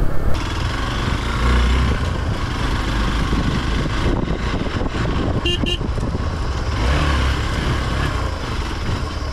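Off-road motorcycle riding along, engine running steadily under a haze of road and wind noise. Two short horn toots come a little past halfway.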